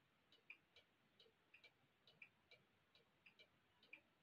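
Near silence with the faint, steady ticking of a clock in the room.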